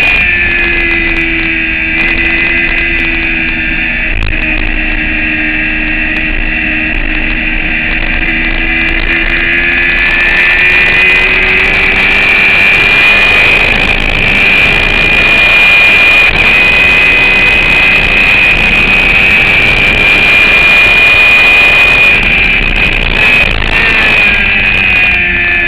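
A sport motorcycle's engine running hard at track speed, picked up by an onboard microphone. The engine note falls slowly over the first ten seconds or so. It then gives way to a steady rush of noise, and clearer engine tones return near the end.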